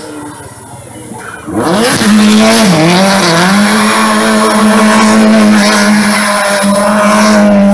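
Subaru Impreza WRC rally car, with its turbocharged flat-four, doing donuts. The engine revs up sharply about a second and a half in and is then held at high revs while the spinning rear tyres squeal.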